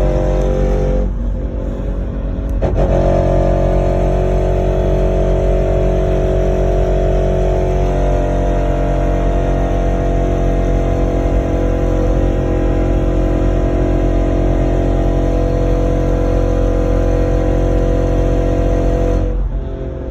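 2005 Suzuki XL-7 under way and accelerating, with a steady whining tone over the engine and road noise. The tone drops slightly in pitch about eight seconds in. The owner calls it a scary noise and suspects the rear differential.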